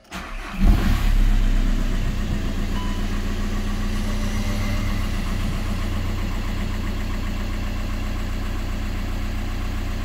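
VW Golf 5's 1.9 TDI four-cylinder turbodiesel (engine code BKC) cranks briefly and catches less than a second in. It flares up, then settles into a steady diesel idle, heard from inside the cabin. The engine is being started after its turbocharger has been replaced.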